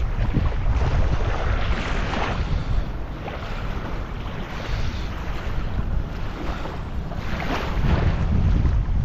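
Wind buffeting the microphone in gusts, with small waves lapping at the shoreline.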